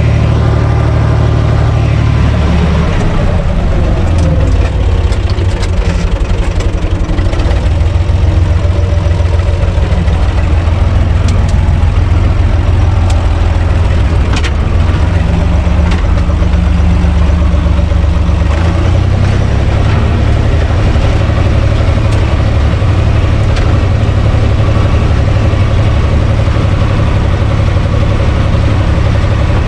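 A Universal 445 DT tractor's four-cylinder diesel engine running as the tractor is driven, heard from inside the cab. The engine note shifts a few times in the first two-thirds, with some light clattering, then holds steady.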